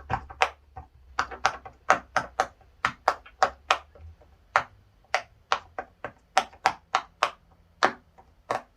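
Silicone pop-it fidget toy bubbles being pressed one after another, a quick uneven run of sharp pops, about three a second.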